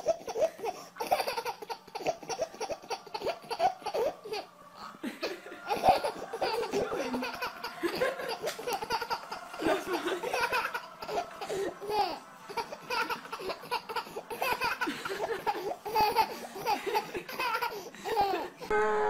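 An infant laughing hard, in short repeated bursts of laughter with brief pauses between them.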